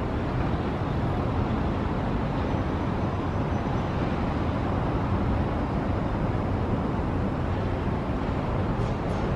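Steady low rumble of distant road traffic, an urban outdoor ambience with no distinct events.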